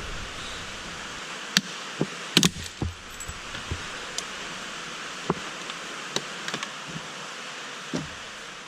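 Scattered sharp clicks and knocks of plastic interior trim being handled and unclipped from a car dashboard, over a steady background hiss.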